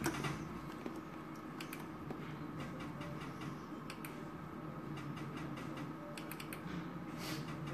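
A Merkur video slot machine being played spin after spin: quick, irregular light clicks and ticks over a faint steady background hum.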